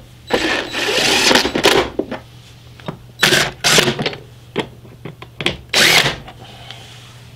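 Cordless drill/driver running in bursts to drive screws as the cleaned air filter goes back into the airbox. One long run about half a second in, then short runs around three, four and six seconds in.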